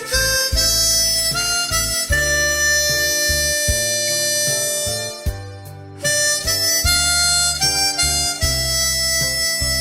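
Harmonica playing a melody over a backing track with a bass line underneath. The notes change every half second or so, with one long note held for about three seconds in the middle.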